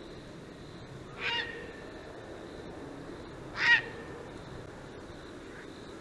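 Heron calls: two short, pitched calls about two and a half seconds apart, the second louder.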